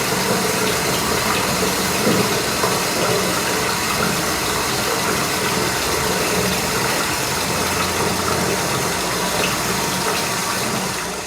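Steady rain: an even hiss of falling water that starts to fade out near the end.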